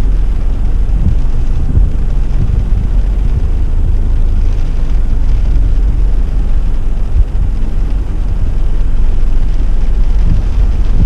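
Car driving, heard from inside the cabin: a steady, loud low rumble of engine and road noise, with a few brief low thumps.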